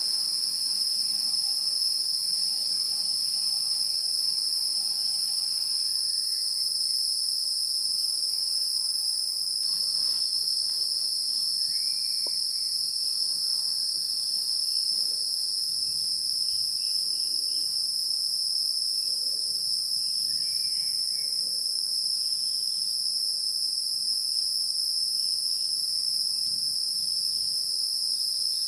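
Steady, high-pitched drone of a forest insect chorus, running without a break. A few faint short chirps sound over it.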